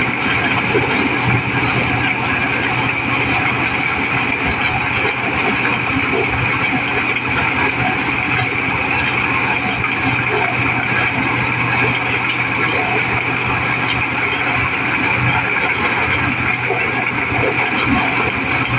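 Mobile corn sheller running steadily under load, its diesel engine driving the threshing drum as unhusked corn cobs are fed in and shelled, one loud unbroken machine din.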